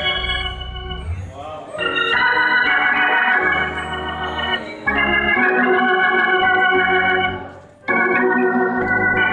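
Organ playing sustained gospel chords over held bass notes, moving to a new chord every few seconds, with a brief break a little before the end.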